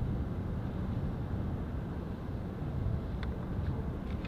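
Distant Airbus A310 airliner's jet engines giving a steady low rumble as it flies over.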